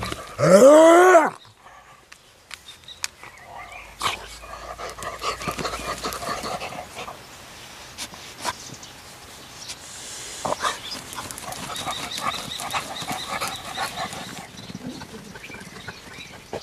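A dog gives one drawn-out yelp about half a second in, its pitch rising and then falling. After it comes the dog digging in loose soil, with paws scraping and scattered clicks as the dirt is thrown.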